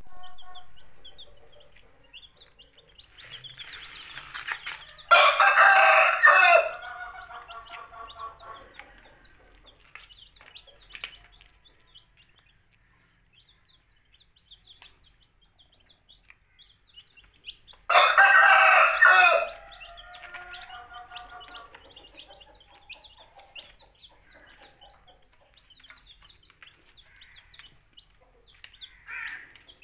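Baby chicks peeping continually, with a rooster crowing loudly twice, about five seconds in and again about eighteen seconds in.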